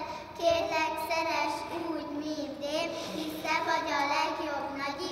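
A young child singing unaccompanied, one clear voice with held notes and short breaks between phrases.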